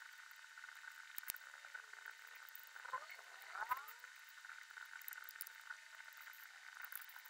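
Faint handling of small plastic model-kit parts: light clicks and rubbing as pieces are pressed together, with a brief squeak about halfway, over a steady hiss.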